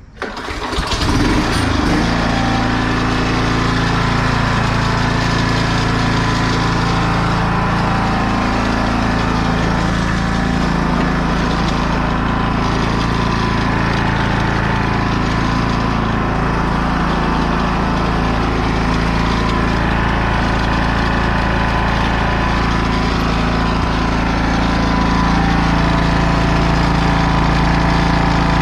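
A 36-inch commercial mower's engine starting and then running steadily, so a freshly replaced fuel line can be checked for leaks while it vibrates.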